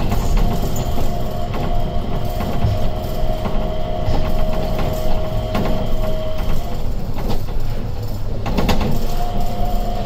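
Changi Airport Skytrain rubber-tyred people-mover car running along its concrete guideway, heard from inside the car: a steady motor whine over running noise stops about two-thirds of the way in, a brief clatter follows near the end, and then a new whine starts.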